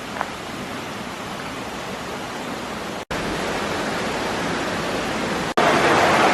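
Steady outdoor rushing noise, like running water or wind on the microphone, broken by two sudden cuts, the last section louder.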